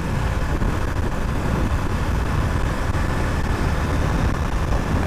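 Suzuki GR150 motorcycle engine running steadily while riding at road speed, mixed with wind noise on the microphone.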